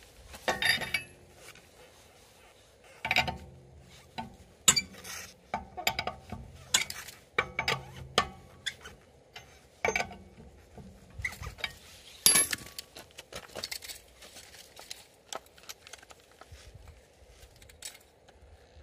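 Steel four-way lug wrench clinking and knocking on a car wheel's lug nuts as they are loosened: a string of sharp metallic clinks and knocks with short pauses between them.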